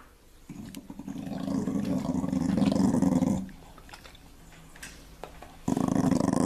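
A dog growling low while guarding food from a cat. One long growl swells over about three seconds, and a second begins near the end.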